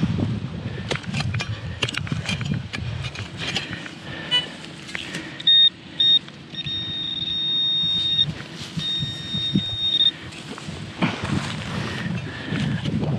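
Clicks and scrapes of a digging tool in hard soil, then a handheld metal-detecting pinpointer sounds a high, steady electronic tone: two short beeps, then two long tones, signalling metal in the hole.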